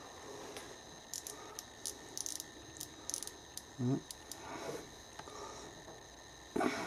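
Faint, scattered clicks and light metal ticks from a 0–1 inch micrometer being handled while its thimble is turned on the spindle during reassembly.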